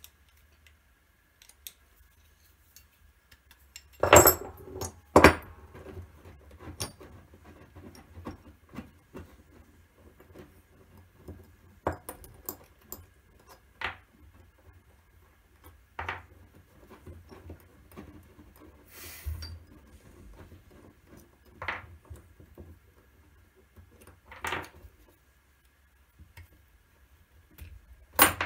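Scattered metallic clinks and knocks of a metal concho die being handled and taken apart on a workbench to free the pressed concho, with two louder knocks about four and five seconds in.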